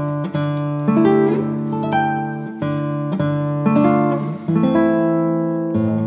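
Background music: an acoustic guitar plays plucked notes and chords, a new one about every second, each fading as the next begins.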